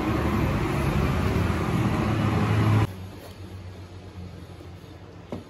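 Steady loud motor noise with a low hum, cutting off abruptly about three seconds in. Quiet room sound follows, with a single faint click near the end.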